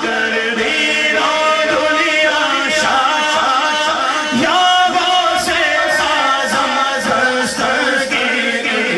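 Men's voices chanting a naat (Islamic devotional poem), a lead voice with several others joining in, sung without instruments.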